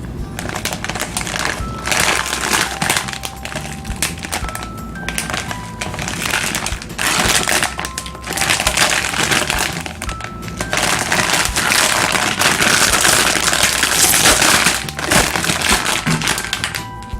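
Background music with bursts of crinkling and cracking over it that come and go for a few seconds at a time.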